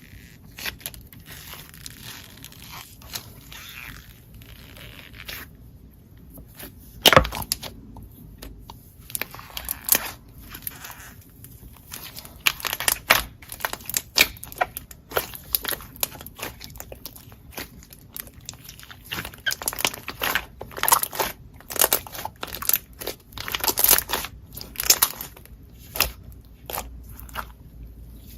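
Slime being squished and poked by hand: an irregular run of sticky clicks and pops, sparse at first with one loud pop about seven seconds in, then coming thick and fast from about twelve seconds on.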